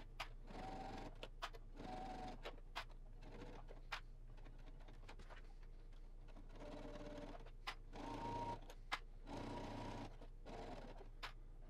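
Brother ST150HDH sewing machine edge-stitching through cotton fabric and bias tape. It runs in several short bursts of stitching with pauses between them, and sharp clicks fall in the gaps.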